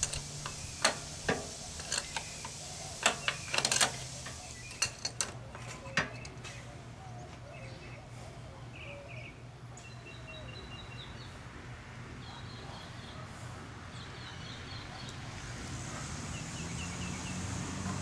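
Sharp metal clicks and taps of an adjustable wrench on a motorcycle's oil pressure sensor as it is loosened, several in the first six seconds. Later come short, repeated bird chirps over a steady low hum.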